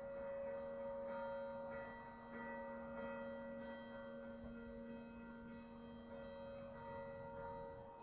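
Old church bell ringing, struck again every second or two, each strike blending into a long, steady hum of several tones.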